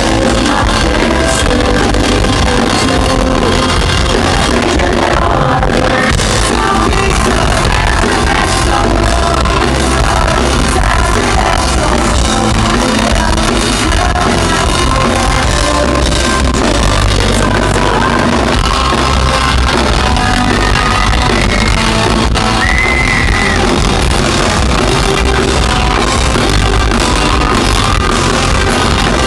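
Live pop-punk band playing a song at full volume, electric guitar and bass with a sung lead vocal, recorded loud and steady from within the crowd.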